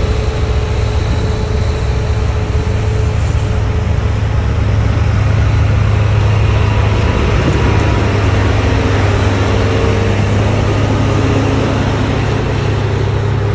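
Komatsu GD655 motor grader's diesel engine running steadily at work, a heavy low drone heard close up.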